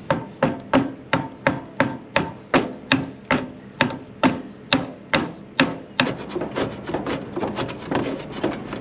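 Quick sharp taps, about two or three a second, from a hand tool striking the fan blade hub where it is stuck on the rusted motor shaft of a Coleman Mach RV rooftop air conditioner. About six seconds in the taps stop and give way to a rougher scraping rub as the blade is worked by hand on the shaft.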